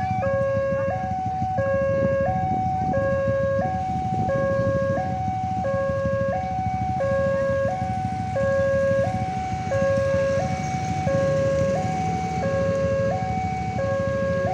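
Railway level-crossing warning siren sounding a steady two-tone high-low alarm, about one high-low cycle a second, over a low steady rumble.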